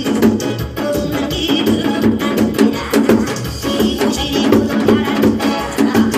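Janggu (Korean hourglass drum) played in a fast, driving rhythm of sharp strikes over loud accompanying music.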